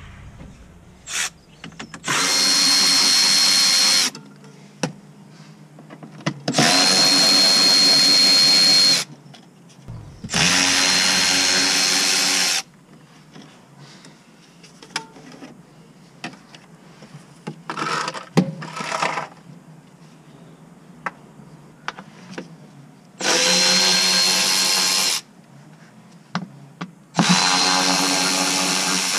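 Hand-held power drill/driver running in five short runs of about two seconds each at a steady speed, undoing the fasteners of a car's underbody panels, with small clicks and knocks of handling between the runs.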